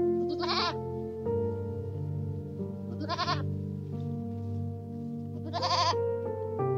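A goat bleating three times, about two and a half seconds apart, each a short quavering call, over soft background music.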